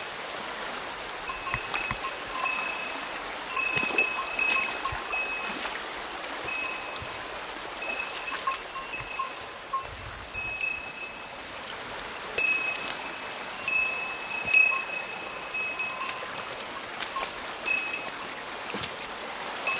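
Repeated bright metallic clinks, each ringing briefly on the same few tones, come in irregular clusters of a few strikes with short pauses between. Under them runs the steady rush of flowing water.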